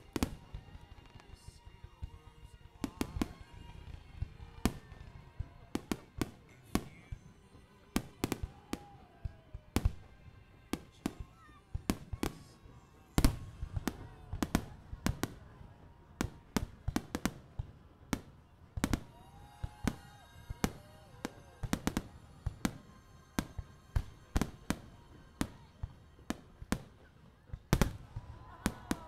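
Fireworks display: aerial shells bursting in an irregular run of sharp bangs, often several close together, with the loudest bang about thirteen seconds in.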